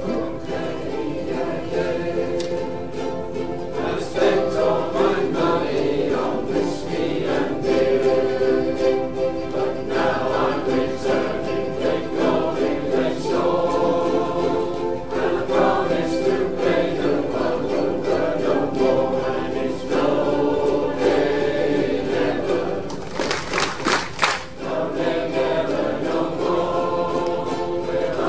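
A large ukulele ensemble strumming together, with the group singing along in chorus.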